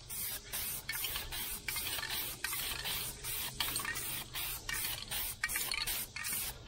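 Aerosol can of black spray paint hissing in short, rapid bursts, about three a second, as a guide coat is sprayed onto a primered truck tailgate.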